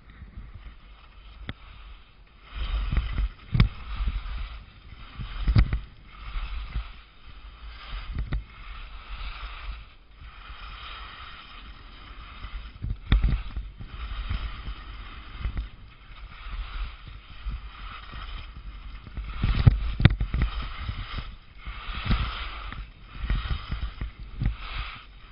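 Skis scraping and swishing through snow on a downhill run, the noise swelling and fading every second or two with the turns, mixed with low rumbles and knocks from the ride.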